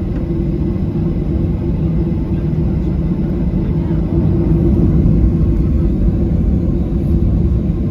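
Steady low rumble and hum of a Boeing 737-800 cabin on the ground before takeoff.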